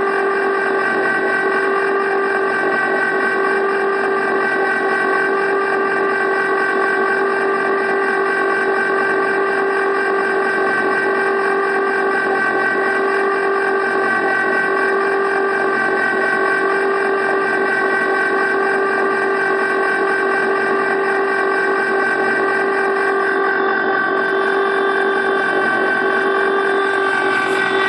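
Electric ice cream maker's motor running steadily as it churns a batch of ice cream, a constant whining hum that never changes pitch.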